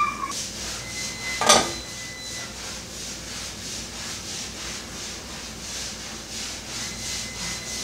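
Steady, pulsing hiss from a gas stove with a pot of shrimp broth heating on the burner, with one sharp knock about a second and a half in.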